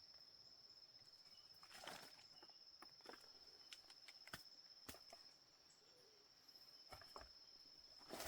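Insects trilling in one steady high tone, with scattered light clicks and rustles over it.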